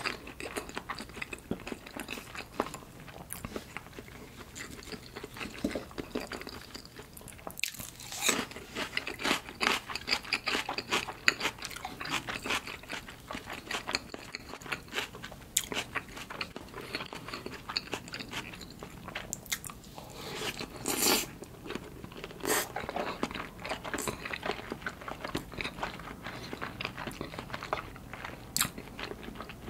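Close-miked chewing of salmon sushi: wet mouth clicks and lip smacks in quick runs, with a couple of louder smacks about two-thirds of the way through.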